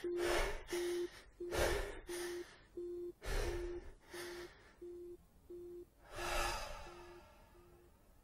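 A quiet electronic beep at a single pitch, pulsing about twice a second and fading, with breathy gasps between the beeps that die away.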